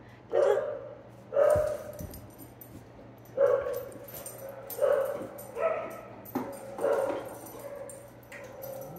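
A dog whining and yipping in a string of short cries, about one a second, with a few drawn out longer toward the end.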